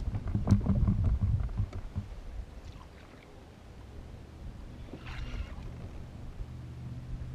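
Knocks and rustling from a Hobie Pro Angler 14 plastic fishing kayak as the angler shifts his weight and handles his rod, loudest in the first two seconds. A brief hiss comes about five seconds in, and a steady low hum near the end.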